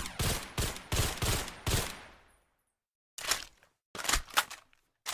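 Sound effect of a suppressed Mauser carbine rifle firing: a quick run of about six sharp shots in under two seconds, with a fading tail. After a short gap come three shorter clusters of shots and clicks.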